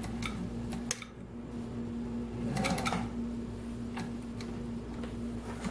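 Singer 201-2 sewing machine finishing a seam in denim: a few slow, even needle strokes that stop about a second in. Then come scattered clicks and knocks as the handwheel is turned by hand and the work is freed, over a steady low hum.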